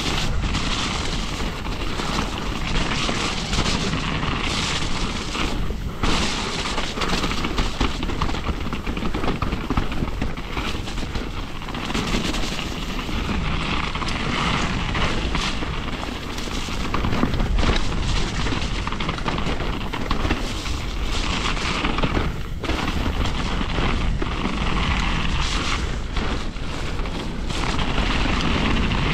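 Mountain bike riding fast down a wet dirt trail: tyres rolling over dirt and leaves, the bike rattling and knocking over bumps, and wind buffeting the camera's microphone.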